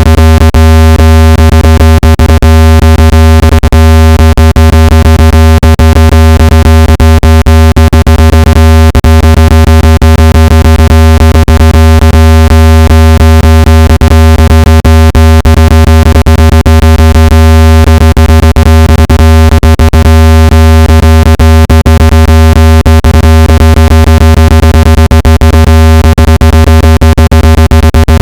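Speaker-cleaning tone: a loud, steady, low buzzing synthetic tone with many overtones, crackling with frequent clicks, made to vibrate dust out of a phone speaker.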